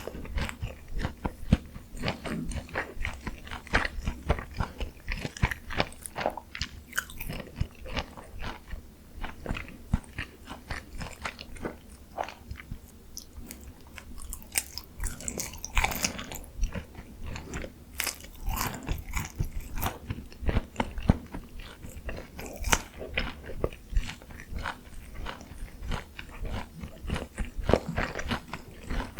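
Close-miked biting and chewing of crispy Korean fried chicken coated in a sticky honey mustard cream glaze: dense crunching with wet, sticky mouth sounds, with louder bursts of crunching now and then.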